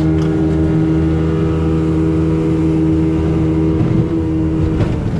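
Jet boat engine running at a steady pitch while underway, with one short click about five seconds in.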